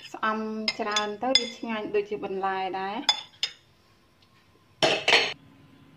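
A metal spoon clinking and scraping against a ceramic plate as it lifts the green shoots, with two loud sharp clatters about five seconds in.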